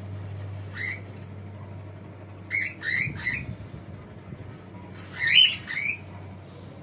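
Cockatiel giving short, wavering chirps in little bursts: one call, then a quick run of three, then two more. A steady low hum runs underneath.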